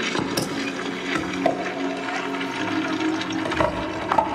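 Soundtrack of a 3D projection-mapping show played over loudspeakers: sound-design effects, a steady rushing noise over several held tones, with scattered clicks.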